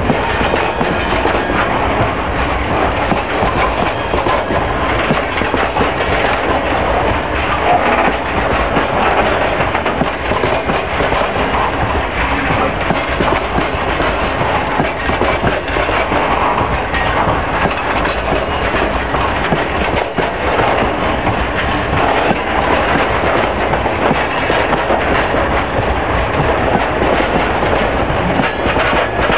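Loaded open coal wagons of a long freight train rolling past, a steady noise of wheels running on the rails.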